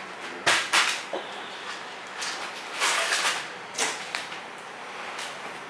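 Handling noises: cloth rustling, with a few sharp clicks and scrapes at irregular intervals and a longer rustle in the middle.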